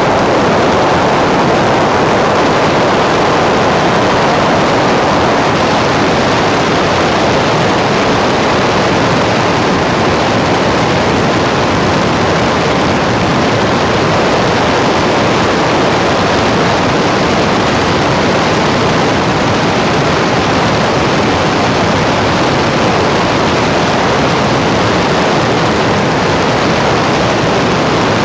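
A loud, unchanging rushing noise with no pitch or rhythm, even and constant throughout.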